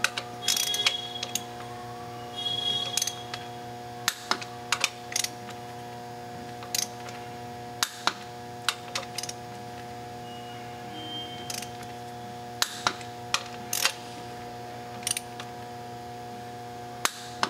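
Torque wrench ratcheting and clicking on flywheel bolts being brought to final torque: a couple of short ratchet runs in the first three seconds, then single sharp clicks as each bolt is pulled up.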